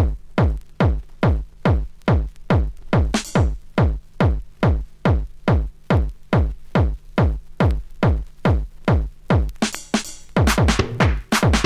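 Techno track opening on a drum-machine kick drum, about two beats a second, each kick dropping in pitch, over a low steady tone. A swish of noise comes about three seconds in and again near the end, after which faster hi-hat-like percussion joins.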